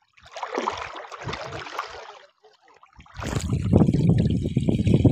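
Water splashing and sloshing as a man moves through chest-deep water and hauls a collapsible ring-net fish trap for about two seconds. After a short pause about three seconds in, there is a louder, low rumbling of churning water and water running off the net as it is lifted, with wind buffeting the microphone.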